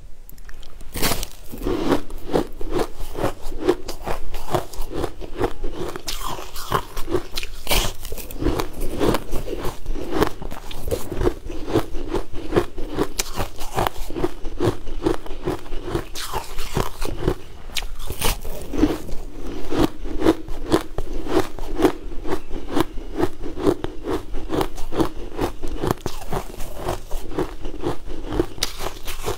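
Close-up biting and chewing of a frosty sweet ice bar: continuous crunching and crackling of ice between the teeth in a steady chewing rhythm.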